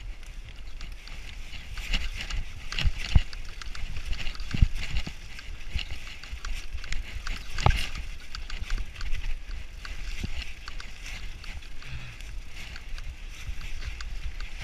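Mountain bike riding fast down a rough forest dirt trail: a steady low rumble of tyres and wind on the microphone, with many sharp knocks and rattles from the bike over roots and bumps, the strongest a few seconds in and near eight seconds.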